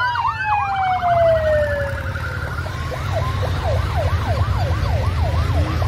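Sirens over the low rumble of a mass of motorcycles riding past on a highway. One siren tone slides steadily down in pitch over the first couple of seconds, then a yelping siren sweeps rapidly up and down, about three times a second.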